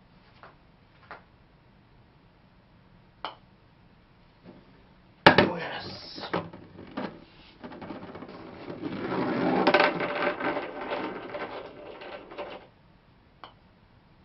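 Golf practice putting mat: a light tap of a putter on a golf ball, then a sharp clatter about five seconds in as the ball drops into the cup. A long rattling roll follows as the ball runs back through the ball return, swelling and then stopping about seven seconds later.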